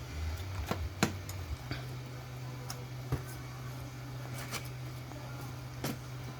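Steady low hum with a few light taps and clicks scattered through it; the hum steps up slightly in pitch about a second and a half in.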